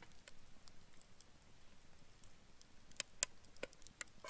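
A few faint, sharp clicks and ticks, spaced irregularly, most of them in the last second and a half.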